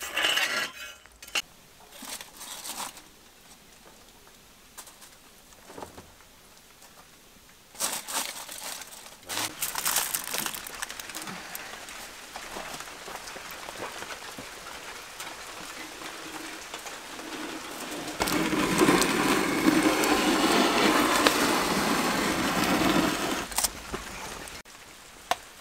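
Metal rake scraping and clinking over hot embers on the floor of a brick wood-fired oven in the first few seconds, then handling noises, and a loud stretch of dense rustling noise lasting about five seconds near the end.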